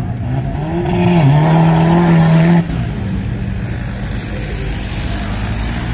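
An off-road 4x4's engine revving hard, climbing quickly and holding at high revs for a couple of seconds, then dropping off abruptly as the throttle is released, with engine noise carrying on at lower revs.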